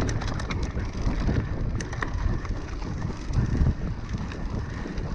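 Mountain bike rolling over dirt singletrack: wind noise on the microphone over a low tyre rumble, with scattered sharp rattling clicks from the bike over rough ground, a cluster near the start and more about two seconds in.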